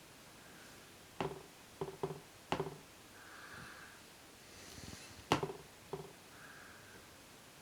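Light taps or knocks, four close together and then two more, each short with a brief ring, over faint room tone.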